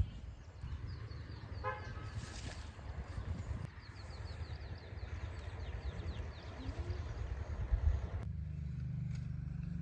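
A motor vehicle running, with a short horn-like toot about two seconds in. The engine settles into a steady low hum from about eight seconds in.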